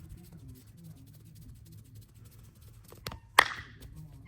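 Hands working during a head, back and neck massage give a short click, then one loud sharp snap about three and a half seconds in.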